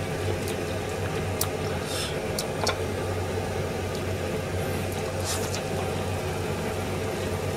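Steady low hum of kitchen stove-top noise, with several light clinks of a metal ladle against a hammered aluminium pot as soup is stirred and ladled, most of them in the first three seconds.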